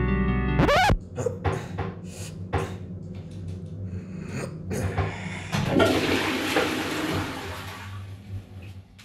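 Cartoon sound effects: a quick rising swoop cuts off the music, a run of short knocks and clicks follows, then a toilet flushes with a rushing of water for about three seconds and fades out near the end.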